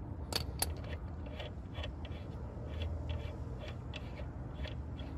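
Hand ratchet wrench clicking as it backs off the front axle nut of a Honda PCX150 scooter: light, uneven pawl clicks, a few a second.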